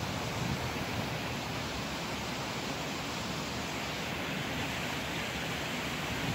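Steady, even hiss of outdoor background noise with no distinct events, picked up by a phone microphone.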